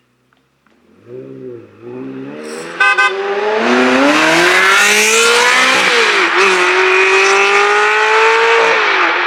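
High-performance sports car engine revving, then accelerating hard at full throttle: the pitch climbs, drops briefly about six seconds in as it shifts up, and climbs again. There is a sharp crack near three seconds in.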